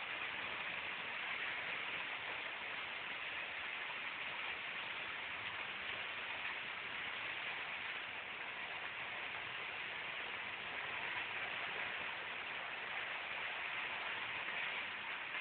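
Torrential rain pouring down in a steady, dense hiss during a severe summer storm.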